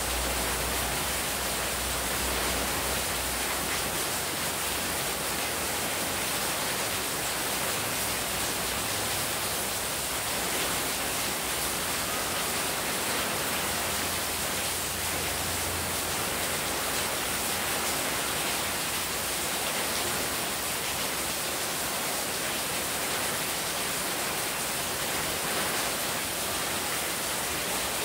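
Heavy rain falling steadily, with water pouring off the roof edge and splashing onto the wet courtyard floor.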